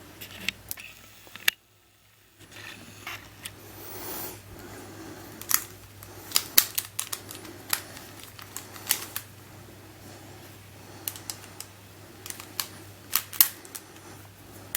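Irregular sharp clicks and clacks of hard plastic speedcube pieces being handled and fitted together, with a brief total silence about two seconds in.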